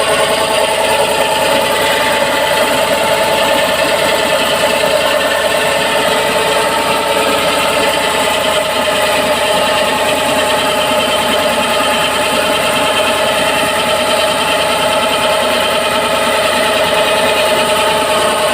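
Motorised drilling machine running steadily at a constant speed, a continuous even mechanical hum that holds the same pitch throughout.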